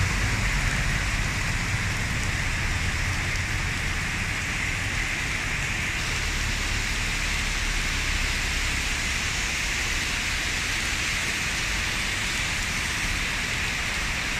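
Heavy rain falling steadily: an even, unbroken hiss of rain on a flooded road.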